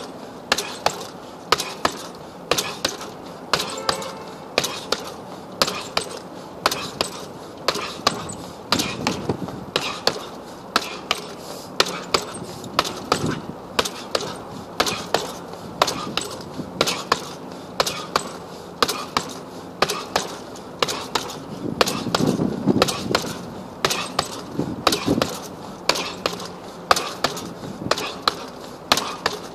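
Fists repeatedly punching a hanging heavy bag: sharp smacks about two a second, at times in quick pairs.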